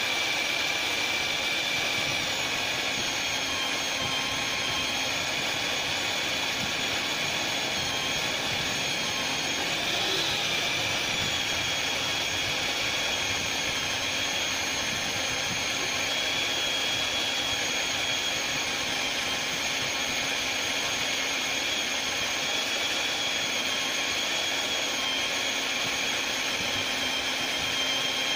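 March magnetic drill's 1400-watt motor running at low speed under load as a 38 mm annular cutter bores into 28 mm steel plate. A steady motor whine over the grinding of the cut.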